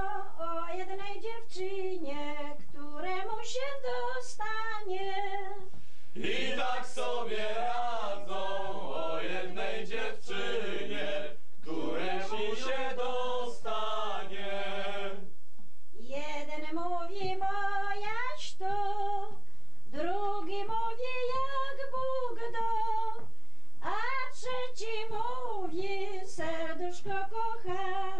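An elderly woman singing a song, with the sound fuller for several seconds in the middle, as if other voices join in.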